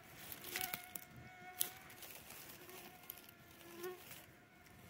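A flying insect buzzing close by: a thin, wavering whine that comes and goes, with one sharp click about a second and a half in.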